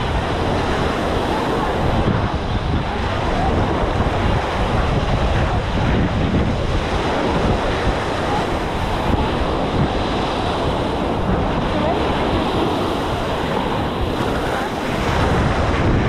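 Steady wind noise buffeting the microphone, over small waves washing up onto a sandy shore.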